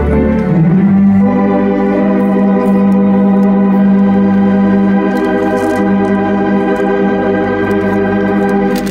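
Wurlitzer theatre pipe organ: a quick rising run, then a full chord with a strong low note held steady for about eight seconds, cut off near the end.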